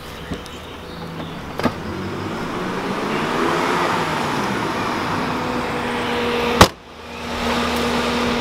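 An Audi's trunk lid slammed shut about two-thirds of the way in: one sharp, loud bang. Before it come a few light clicks, and under it all a steady vehicle hum.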